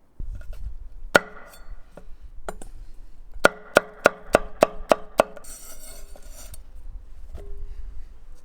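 Metal being struck: one sharp ringing strike about a second in, then a quick run of seven about four a second, over a low rumble.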